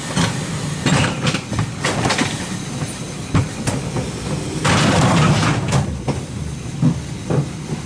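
Mountain-coaster bobsled car running along its tubular steel rails: a steady rumble of the wheels on the track, with irregular clacks and knocks. A louder rush of noise comes about five seconds in.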